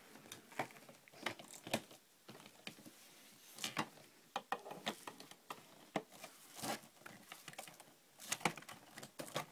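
Hose and plastic fittings of a Hoover Turbopower 3 upright vacuum cleaner being handled and fitted back in place, with the motor off: scattered small clicks, knocks and rustles at irregular intervals.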